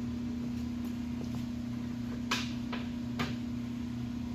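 Three sharp metal clicks, the first the loudest, between about two and three seconds in: a homemade lathe depth stop being set and locked against the ways. A steady low machine hum runs underneath.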